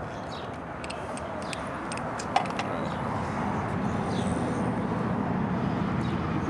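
Scattered small metallic clicks and one sharp tap about two and a half seconds in, from hands working a hose clamp on a transmission-cooler hose and handling the cooler, over a steady outdoor background rumble.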